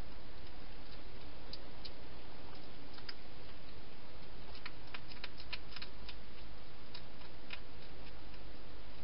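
A hedgehog eating from a bowl inside a plastic feeding box: irregular sharp clicks, with a quick run of them about five seconds in, over a steady hiss.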